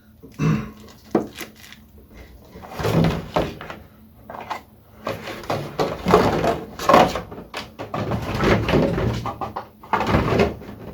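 Plastic packaging crinkling and rustling in irregular bursts as a PVC figure is pulled from its clear plastic tray and plastic bag, with a couple of sharp clicks about a second in.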